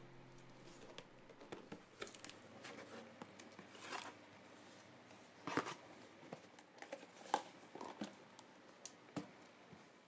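Faint unboxing sounds: a box cutter slitting the packing tape on a cardboard box, the box being opened, and small boxes lifted out and set down, heard as scattered scrapes, crinkles and light knocks.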